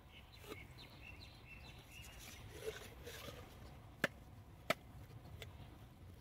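Knife blade working against the shell of a giant freshwater mussel as it is pried open: faint scraping and rubbing, then three sharp clicks in the second half.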